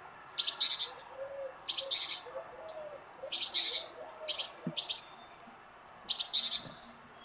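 Great tits calling: short clusters of quick, high-pitched calls, repeated about seven times with gaps between them.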